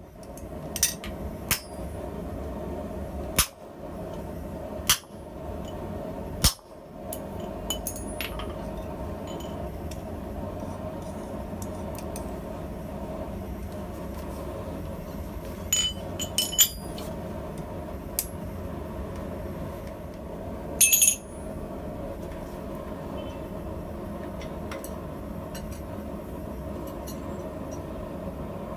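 Steady rushing drone of a forge running, with a faint low hum under it. Over it, sharp metallic clinks of tongs and steel set down on the anvil, several in the first few seconds and two short rattles of clinks later on.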